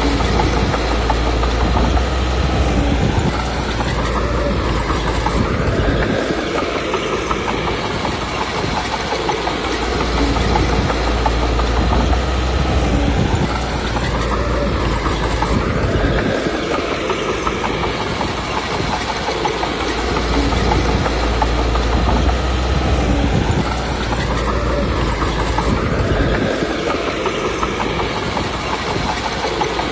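Komatsu D21P crawler bulldozer working: its diesel engine running under load with the steel tracks clattering, swelling and easing in a repeating cycle about every ten seconds as it pushes and backs up.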